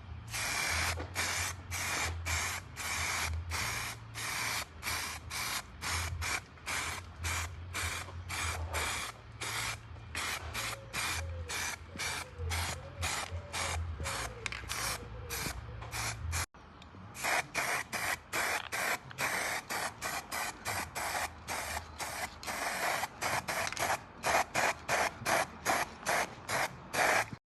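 Aerosol spray can of etch primer being sprayed onto an alloy wheel in quick short hissing bursts, about two a second. A steady low hum runs under the first half.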